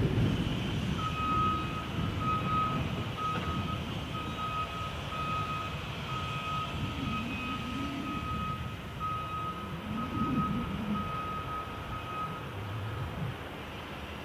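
Heavy-machinery back-up alarm beeping at one steady pitch, about twice a second, stopping near the end. Under it runs the low, uneven rumble of the diesel engines of the wheel loader and dump trucks.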